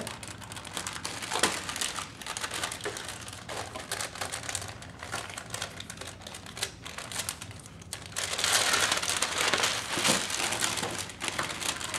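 Crinkling and rustling of a clear plastic bag and paper as a kit manual and decal sheet are handled, with many small crackles and a louder stretch of rustling near the end.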